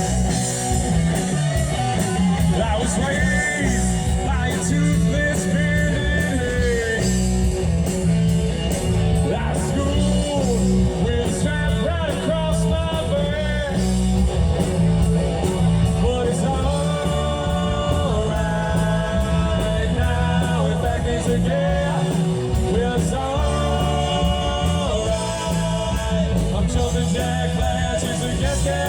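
Live rock band playing: a singer's voice over electric guitar, bass and drums, loud and steady.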